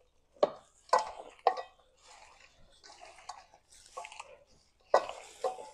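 Gloved hands mixing raw pork chunks in an oily marinade in a stainless steel bowl: wet squelching and rustling, with sharp slaps of meat, three in the first two seconds and two more near the end.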